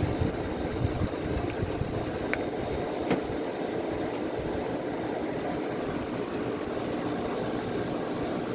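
A 5000 BTU Gibson room air conditioner running steadily, its fan blowing air over the coils with the compressor going. There are a couple of faint ticks a few seconds in.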